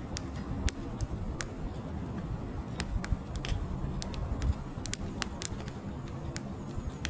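Split firewood logs burning in an open fire, crackling with irregular sharp pops, about two or three a second, over a steady low rumble.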